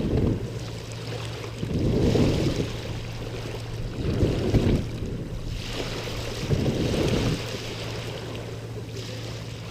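Wind buffeting the microphone in low gusts about every two seconds, over a steady low hum by open water.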